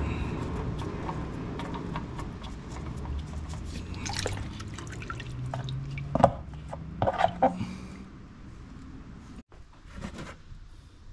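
Engine oil trickling and dripping as the old spin-on oil filter is unscrewed by hand and comes off its mount, with a few sharp knocks past the middle.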